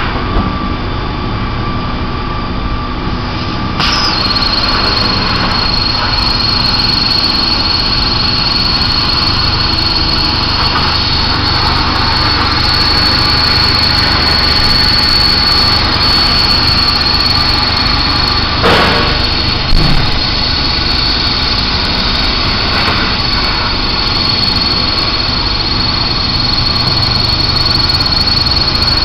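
Two Hypertherm HPR260XD plasma torches cutting steel plate: a loud, steady high-pitched whine over a dense hiss. The whine starts sharply about four seconds in, and there is a short sharp noise about two-thirds of the way through.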